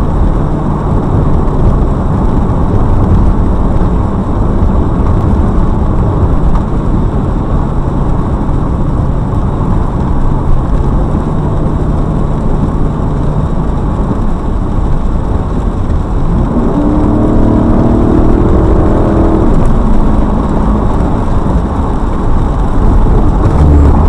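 Steady, loud in-cabin drive noise of a car on a wet road: engine and tyres running, with a rising engine-like tone for about three seconds roughly two-thirds of the way in.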